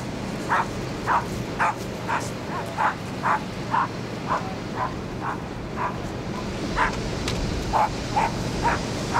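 Small spaniel barking: sharp, high yips repeated about twice a second, with one short pause about two-thirds of the way through, over a steady background of noise.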